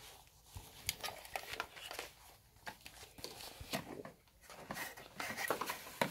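A slippery synthetic-fabric meter pouch rustling and crinkling as it is handled and worked over a multimeter and its test leads, with scattered light clicks and knocks.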